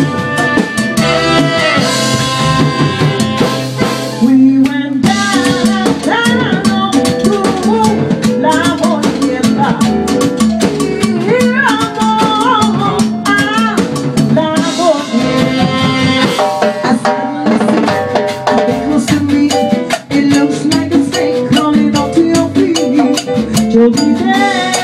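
Live salsa band playing: drum kit and Latin percussion keep a steady beat under pitched instrument lines that include saxophone.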